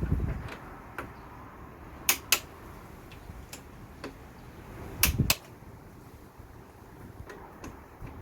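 Click-type torque wrench clicking off as the footrest hanger bolts reach their 25 Nm setting: two sharp double clicks about three seconds apart, with low handling noise of the wrench and bike.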